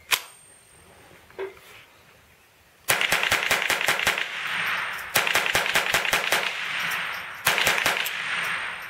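Ruger SR-22 .22 LR semi-automatic rifle fired rapidly in three quick strings of shots, about seven a second, with short pauses between and an echo hanging after each string. Before the shooting comes a sharp metallic click from the rifle's action, then a fainter click.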